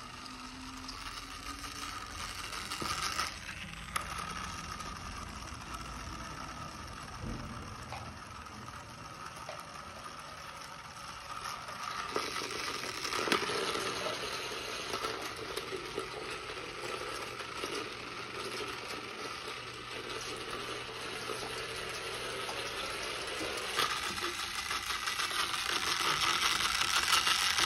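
Small electric motor and plastic gears of a battery-powered toy track car whirring steadily as it runs, with a faint rattle of its wheels, growing louder near the end.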